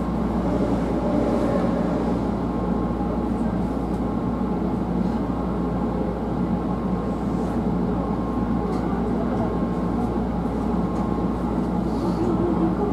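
Hankyu 1000 series electric train running at speed, heard from inside the front car: a steady rumble of wheels and running gear with a faint steady whine.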